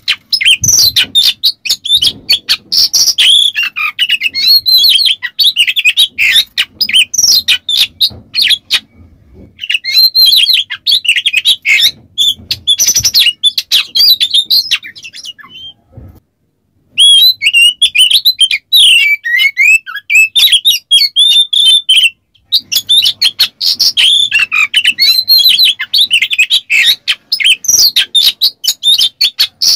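Oriental magpie-robin singing a fast, dense song of chirps, whistles and harsh rasping notes. It breaks off briefly about nine seconds in and for about two seconds around the middle.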